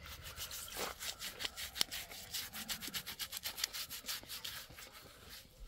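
Scratchy rubbing of a hand and gauze pad against a horse's hair and skin: a quick, irregular run of short scrapes.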